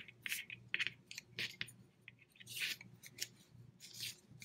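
Wooden double-pointed knitting needles clicking and scraping against each other and through super bulky yarn as stitches are knitted, in short irregular strokes several times a second.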